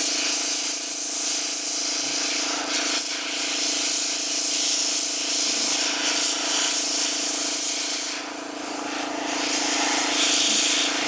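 Iwata Eclipse double-action airbrush spraying paint in a steady hiss, with a steady low hum underneath; the spray eases off briefly about eight seconds in.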